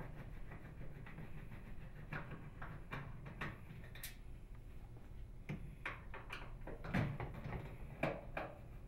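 Phillips screwdriver unthreading the screws of a microwave oven's upper door hinge: faint scattered clicks and small metal knocks as the screws turn out.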